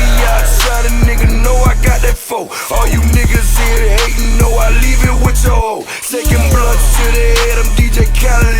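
Hip hop music with a heavy bass beat and vocals; the beat drops out briefly twice.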